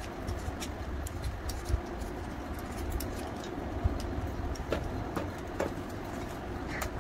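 Hand peeler scraping the skin off raw green mangoes over a metal plate: scattered light clicks and scrapes over a low rumble.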